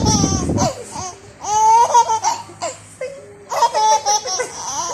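A nine-month-old baby laughing in high-pitched bursts, three bouts of giggling with short breaths between.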